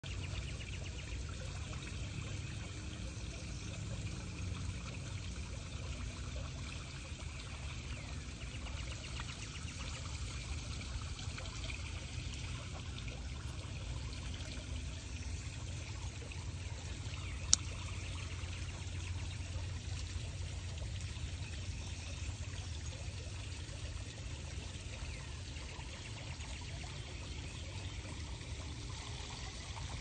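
Steady rushing background noise, with one sharp click about seventeen seconds in as the folding pocket knife's blade snaps open.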